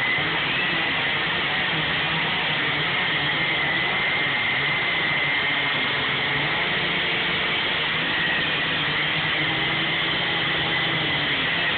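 Two gas chainsaws running at full throttle together, a big long-bar saw cutting through a large tree trunk and a smaller saw cutting a limb. Their engine notes waver up and down independently as they cut.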